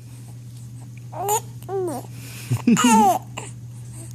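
Baby babbling: three short, high-pitched cooing calls about a second apart, the last one the longest and loudest, over a steady low hum.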